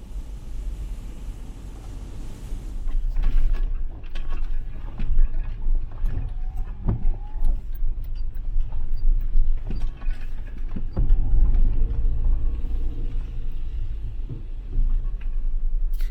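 Suzuki Jimny driving: a steady low road and engine rumble with occasional knocks and rattles.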